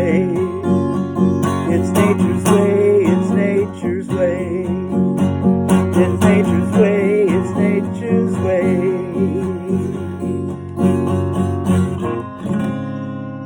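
Instrumental ending of a song: strummed acoustic guitar with a wavering melody line over it. About a second before the end the strumming stops and a last chord rings out and fades.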